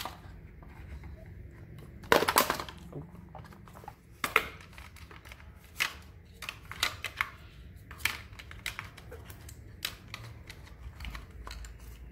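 Hands handling a smartphone's cardboard retail box and its packaged accessories: scattered clicks, taps and rustles, the loudest a short scrape about two seconds in.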